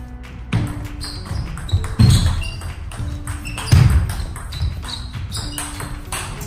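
Table tennis ball clicking off paddles, table and floor during a rally, with shoes scuffing on the wooden floor, over background music. Two heavy low thuds stand out, about two and four seconds in.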